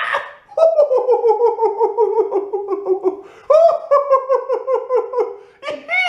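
A man's put-on, exaggerated laugh, an attempt at SpongeBob's laugh. It comes as two long runs of rapid staccato 'ha-ha-ha' pulses, each sliding slowly down in pitch.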